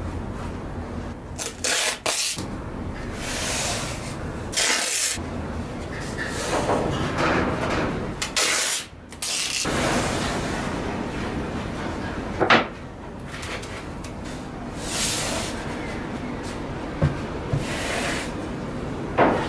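Hands rubbing and smoothing woven embroidered fabric flat onto a lid panel, with irregular rustling and scraping handling sounds and a few sharp knocks, the loudest about two-thirds of the way through.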